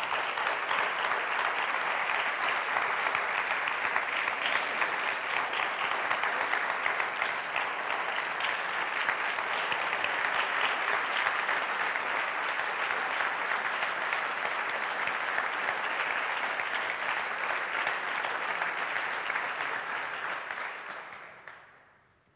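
An audience applauding, a steady, dense clapping that fades out about twenty-one seconds in.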